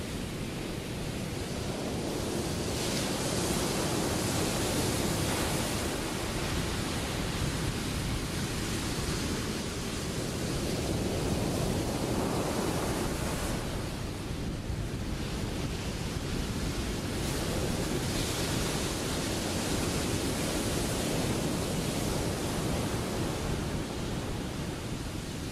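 Ocean surf: a steady rush of breaking waves and whitewater that swells louder for a few seconds several times, with some wind noise mixed in.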